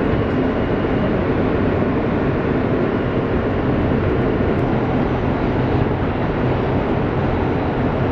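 New York City subway car running, heard from inside the car: a steady, loud rumble and rush of noise.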